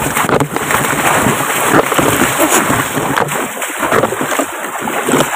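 Water splashing and sloshing continuously, from wading through shallow water; the deeper sloshing eases off a few seconds in.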